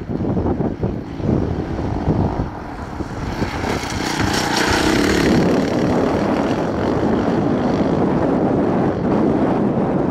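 Off-road rally vehicle's engine passing close by, getting louder and brighter about four to five seconds in.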